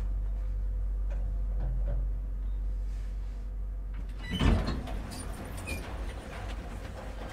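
1982 KONE hydraulic elevator heard from inside the car: a steady low hum while it travels, then a loud thump about four and a half seconds in as it stops, followed by the car's sliding doors opening.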